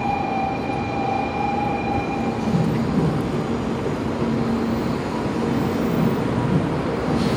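Steady rumble and hum of a busy shinkansen station platform with trains in the tracks alongside, with a steady high whine that fades out about two and a half seconds in.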